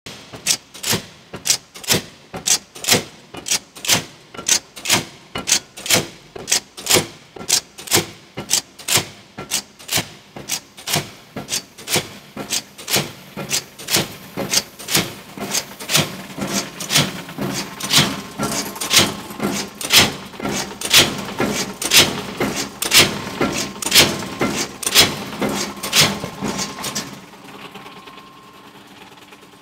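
Cincinnati power shear running and cycling, a steady series of sharp metallic clanks, about two a second at first and then about one a second over a low machine hum. The clanks stop near the end, leaving the hum.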